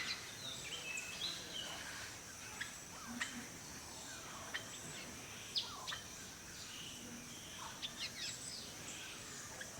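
Rainforest ambience: a steady background hiss with scattered short bird chirps and whistles from several birds.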